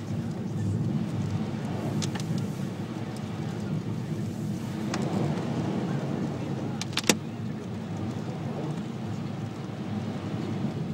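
Car driving on a snowy road, heard from inside the cabin: a steady low rumble of engine and tyres, with a few sharp clicks, the loudest a little past the middle.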